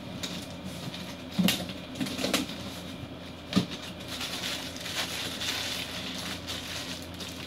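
Plastic wrapping crinkling and a cardboard box rustling as a 15-inch subwoofer is worked out of its shipping box, with two short knocks, about a second and a half in and again midway.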